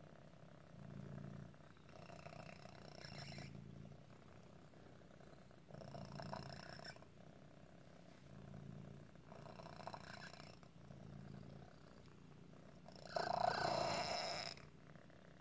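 Orange tabby cat's squeaky, laboured breathing, a breath every two to three seconds, with the loudest and longest squeak about thirteen seconds in. The squeak comes from a deformity that sometimes makes it hard for him to breathe, much like asthma.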